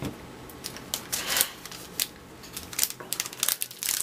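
Hands handling baseball cards and a foil wax pack on a tabletop: a run of short clicks, scrapes and wrapper crinkles, with a longer rustle about a second in.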